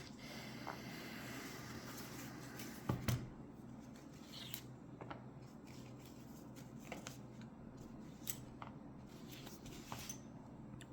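Light clicks and handling noises of a Ruko 600 lock and its key being worked, with one louder knock about three seconds in.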